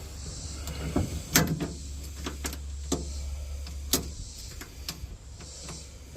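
A scattered series of sharp clicks and light knocks, the loudest about a second and a half in and about four seconds in: hand tools and metal parts being handled while working on a bolt.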